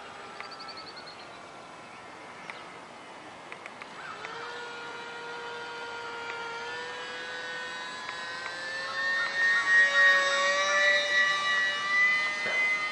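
Ultra-micro RC ICON A5 flying boat's small electric motor and propeller whining. The pitch drops near the start, then about four seconds in the whine comes back up with the throttle and grows steadily louder, loudest over the last few seconds.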